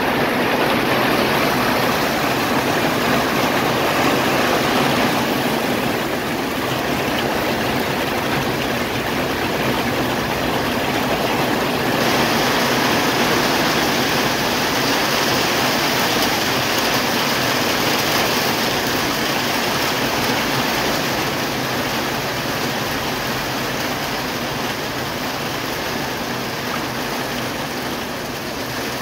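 Light rain falling steadily on rice plants and leaves: an even, continuous hiss.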